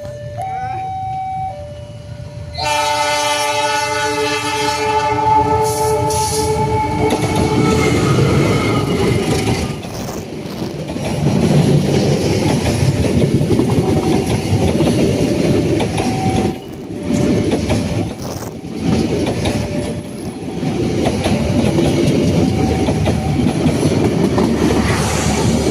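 Ciremai Express passenger train sounding its horn, a chord held for about five seconds, then passing close by with a loud, continuing rumble and clatter of wheels and carriages. Before the horn, a two-tone alarm alternates steadily, typical of a railway level-crossing warning, and it goes on faintly under the passing train.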